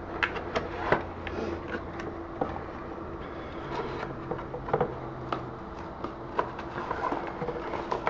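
Cardboard packaging handled by hand: scattered light taps, scuffs and rustles as a box insert is lifted, with bubble wrap crinkling near the end, over a faint steady hum.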